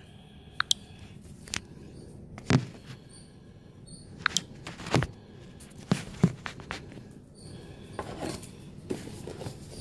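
Cardboard shipping box being handled and opened: scattered short knocks and taps, with rustling about eight seconds in.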